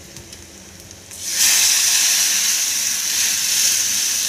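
Hot oil tempering of mustard seeds, green chillies and curry leaves sizzling faintly in a steel kadhai, then a sudden loud hiss about a second in as the yogurt-and-gram-flour kadhi batter is poured onto it, sizzling steadily after.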